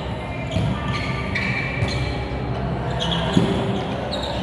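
Volleyball rally: a few sharp thumps of hands striking the ball, the loudest about three and a half seconds in, over steady background music.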